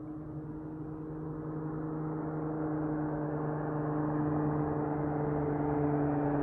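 Dodge Charger SXT with a Flowmaster Outlaw exhaust, driving with the exhaust droning at a steady pitch while a rushing road and wind noise grows steadily louder.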